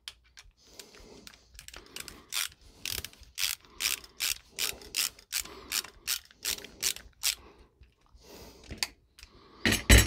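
Megapro ratcheting screwdriver clicking in quick runs of about two to three clicks a second as it drives a ground screw tight in a metal electrical box, with a louder knock near the end.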